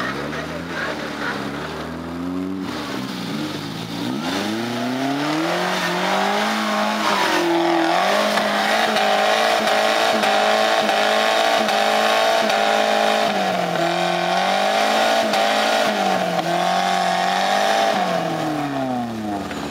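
Suzuki Samurai's engine revving hard as the 4x4 climbs a steep dirt bank. The revs rise about four seconds in, hold high with a brief dip partway through, and drop off near the end.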